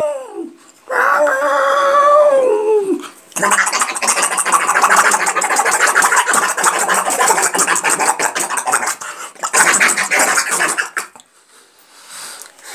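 A man imitating cats with his voice. First comes a drawn-out meow-like call whose pitch falls away at the end, and then a long harsh, crackling hiss-like noise like cats fighting, which stops abruptly about 11 seconds in.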